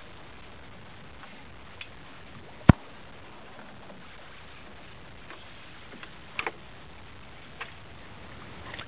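Small fishing boat on open water: a steady low hiss, broken by one sharp knock a little under three seconds in and two lighter knocks just past six seconds.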